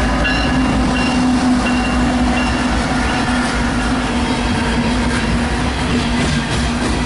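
Loaded CSX coal train passing at close range: the locomotives go by, then loaded coal hopper cars roll past with a steady rumble and clatter of wheels on the rails. A steady low hum runs under it.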